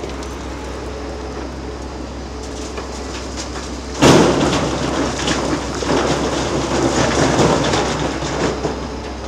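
Large hydraulic excavator working in hard black Jurassic rock: a steady low engine drone, then about four seconds in a sudden loud crash of rock that goes on rattling and grinding for several seconds.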